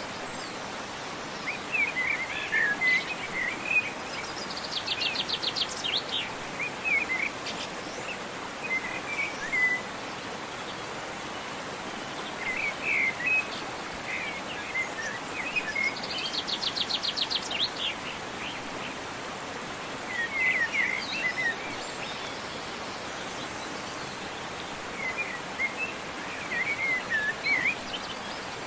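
Songbirds singing short chirpy phrases, with a fast high trill twice, over the steady rush of a waterfall.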